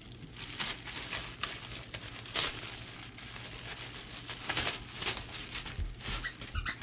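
Clear plastic packaging bag crinkling and rustling in irregular bursts as it is handled and opened to get a plush dog toy out.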